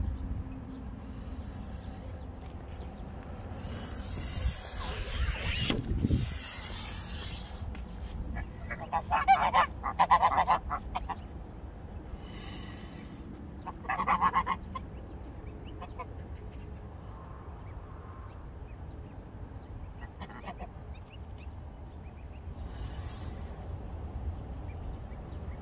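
Domestic white geese honking in loud bursts, a run of calls about nine to eleven seconds in and another at about fourteen seconds, with quieter calls between. The honking is agitated: the parent geese are separated from their goslings by a fence.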